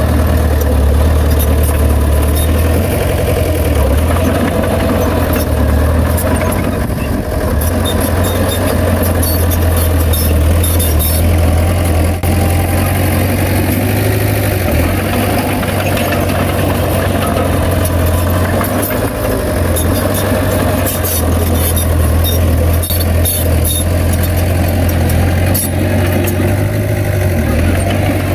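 Heavy diesel engine of a Komatsu bulldozer running steadily, with scattered metallic clanks and rattles over the engine note.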